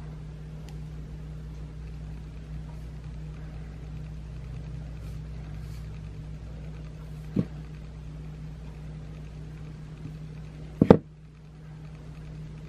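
Steady low electrical hum, broken by two short knocks: a light one about halfway through and a louder one near the end.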